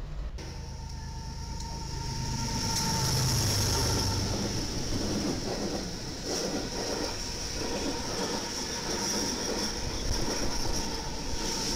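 BNSF diesel freight locomotives passing close at speed: a low engine rumble, loudest a few seconds in, over the steady rolling noise of steel wheels on the rails.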